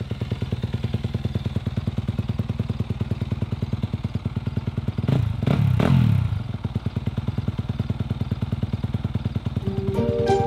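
Yamaha motocross bike's single-cylinder engine idling with an even, rapid pulse, blipped up twice about halfway through and settling back to idle. Music starts in near the end.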